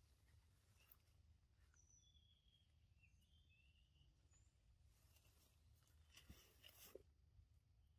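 Near silence of forest undergrowth: a few faint, short bird chirps in the first half, then a brief soft rustle of leaves about five seconds in, as a young macaque moves through the plants.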